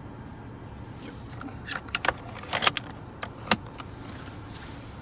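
A run of sharp plastic clicks and rattles from the Mercedes E320 W211's pop-out cup holder being worked, spread over about two seconds, with the last click a little after three seconds in. A steady low cabin hum runs underneath.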